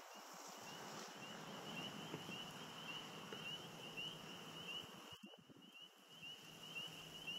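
A chorus of frogs calling faintly: short rising chirps at one high pitch, repeating several times a second, over a steady hiss.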